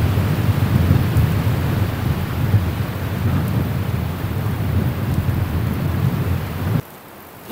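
Strong gusting wind buffeting the microphone, a steady low rumble that cuts off suddenly near the end.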